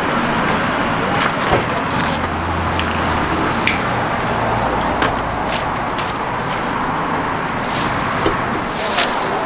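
Steady low hum of street traffic, with scattered light taps and clicks from a cleaver and gloved hands working a grilled chicken on a wooden chopping block.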